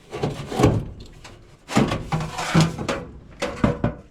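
Several short, irregular bursts of clattering and scraping as a part is worked loose by hand.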